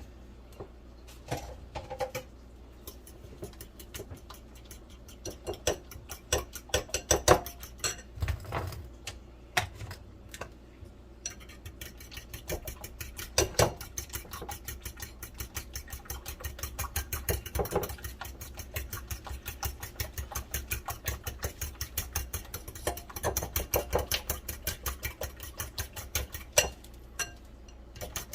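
Fork beating seasoned eggs in a bowl: scattered clinks and knocks at first, then from about a third of the way in a fast, steady run of clicks at roughly four a second.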